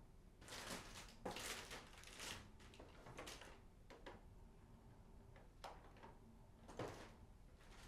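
Quiet household handling sounds in a small room: a short run of soft rustling and scraping, then a few light, separate clicks and knocks.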